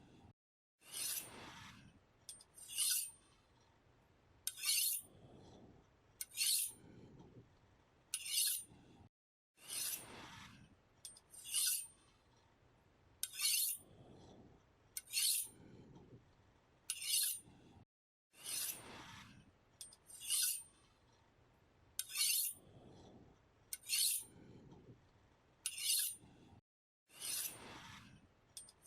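Knife blade drawn repeatedly across a sharpener in steady strokes, about one every one and a half to two seconds. Short, bright, high metallic scrapes alternate with longer sweeping strokes that slide down in pitch.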